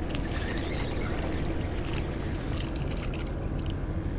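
Water sloshing and lapping against a plastic fishing kayak's hull over a steady low rumble, with a few light clicks scattered through it.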